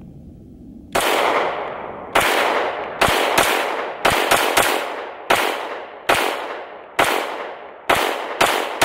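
Staccato C2 2011-style pistol firing about a dozen shots at an uneven pace, starting about a second in, several in quick pairs and triplets, each shot trailing off in a long echo.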